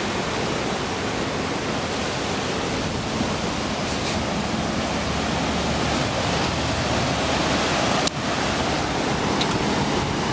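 Steady rush of ocean surf breaking on a sandy shore, with one brief click about eight seconds in.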